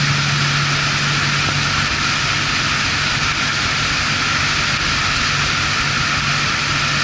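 2002 Malibu VLX's Indmar Monsoon 350 small-block V8 inboard running steadily at cruising speed, around 4,200 RPM, with the rush of water over the hull. Its exhaust goes out through a fresh air exhaust, so the water and the engine bay are heard more than the exhaust note.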